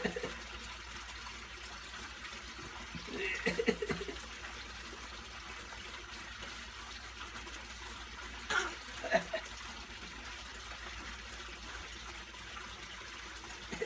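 A child's fake coughs: two short voiced bursts, one about three seconds in and another near nine seconds, over a steady background hiss.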